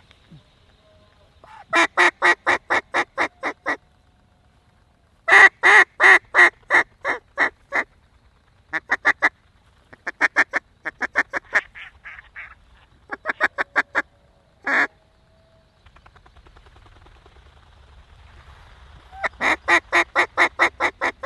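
Mallard hen duck call blown in repeated descending series of loud quacks, about five a second, each series fading as it goes, with one longer single quack partway through; the hen calling used to work circling mallards toward the decoys.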